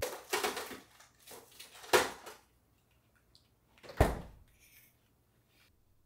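A freezer being opened and shut, with rustling and clattering at the start, then two sharp knocks about two seconds apart. The second knock, about four seconds in, is the loudest.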